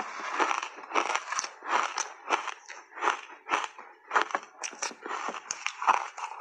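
Shaved ice crunching as a mouthful is chewed: a quick run of crisp crunches, about two or three a second, with a metal spoon scooping through the ice in a plastic tub.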